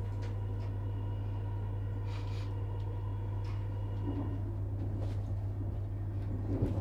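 Interior running noise of an intercity passenger train carriage: a steady low hum and rumble with faint clicks, and a brief knock near the end.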